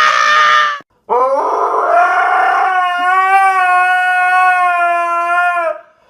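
Dog howling: one howl breaks off under a second in, then a long howl rises in pitch and is held at one steady pitch for several seconds.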